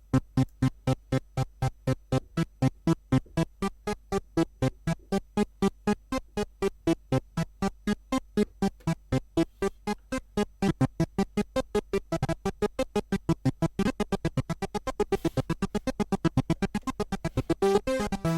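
Behringer DeepMind 12D analog polysynth playing a fast arpeggiated sequence of short staccato notes, about four to five a second. The notes lengthen and run together towards the end.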